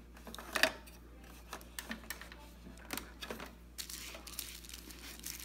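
Scattered small plastic clicks and taps as a syringe and silicone tube are fitted to an inkjet printer's ink nozzle and handled, with one sharper click about half a second in.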